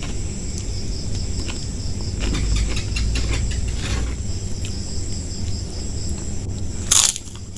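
Close-up chewing of food, with one loud crunchy bite about seven seconds in, over a steady, pulsing chirr of insects in the background.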